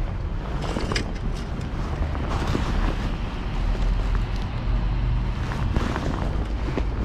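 Steady low wind rumble buffeting the microphone, with a few faint clicks.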